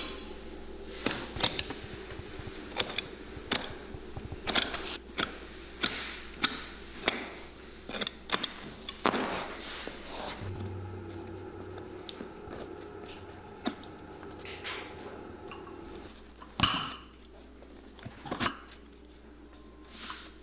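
Cobbler's hand tools working on the bottom of a boot: irregular sharp clicks and taps, with a couple of longer scrapes, over a steady hum.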